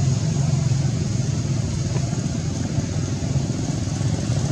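Steady low rumble of an idling engine, unchanging throughout.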